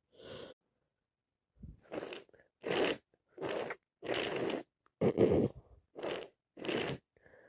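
A woman with a heavy cold sneezing in a rapid fit: one short burst at the start, then, from about two seconds in, seven more explosive sneezes coming quickly one after another.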